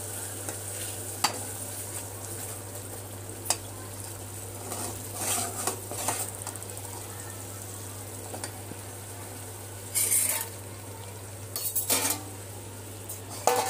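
A spoon stirring and scraping thick red garlic-and-chilli chutney frying in an aluminium pot, with a few sharp clinks against the pot early on and louder bursts of scraping around the middle and near the end. A steady low hum runs underneath.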